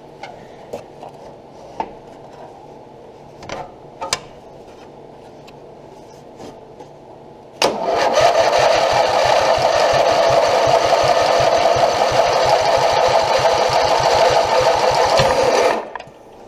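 A few light knocks, then about eight seconds in the electric starter of a Craftsman riding mower cranks the engine hard and steadily with a fast regular pulse, for about eight seconds, before stopping abruptly. It is a long test crank of a newly fitted replacement starter gear, which holds up.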